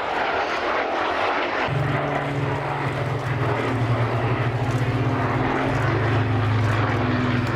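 Propeller-driven aeroplane's engine running in flight, a rushing noise joined about two seconds in by a steady low drone.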